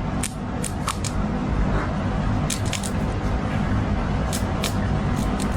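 A run of irregular sharp clicks and light metallic ticks, several a second, over a steady low rumble.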